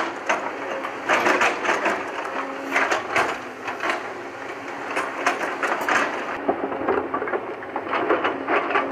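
JCB tracked excavator's bucket scraping and digging through stony soil, rocks and gravel clattering with many irregular sharp knocks, over the low steady hum of the engine.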